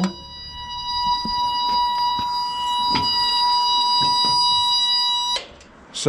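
A steady, high-pitched electronic buzzer tone, like an alarm, that cuts off suddenly about five seconds in, with a few faint clicks over it.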